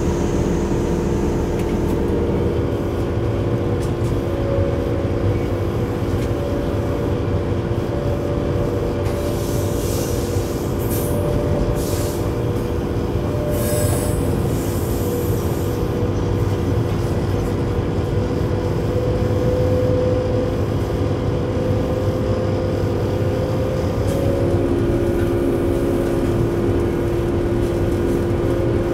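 Cab noise of a Siemens EuroSprinter class 120 electric locomotive running with a heavy freight train: a steady whine over the rumble of the running gear. A brief high hiss comes twice, about ten and fourteen seconds in.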